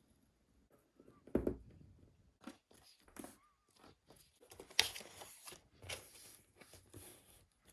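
Leather and hand tools being handled on a work surface: scattered knocks and short scraping rubs, with a sharp knock about a second and a half in and a longer scrape about five seconds in.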